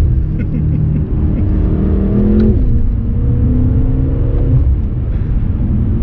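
BMW M5 F10's twin-turbo V8 heard from inside the cabin under acceleration, its note climbing and then dropping sharply about two and a half seconds in as the seven-speed dual-clutch gearbox shifts up, then running steadily over a constant low rumble.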